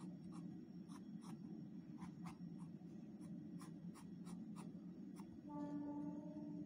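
A felt-tip sketch pen scratching in short strokes on a wooden ice-cream stick as a frock is coloured in, faint, over a steady low hum. About a second before the end a steady tone joins in.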